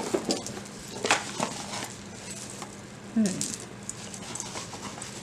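Costume jewelry pieces clicking and clinking together as they are picked up and handled, with a short low hum of a woman's voice about three seconds in.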